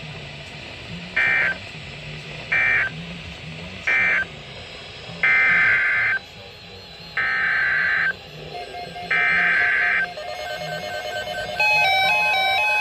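NOAA Weather Radio SAME data bursts, the harsh buzzy digital tones of the Emergency Alert System. Three short bursts, the end-of-message code closing the statement just read, are followed by three longer bursts of a new alert header. In the last few seconds the radios' own alert beeps start up, stepping between pitches and getting louder.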